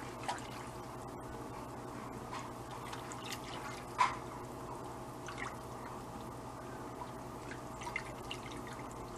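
A whisk stirring thin gravy liquid in a slow cooker's crock: faint, irregular sloshing and dripping, with one slightly louder splash about four seconds in, over a faint steady hum.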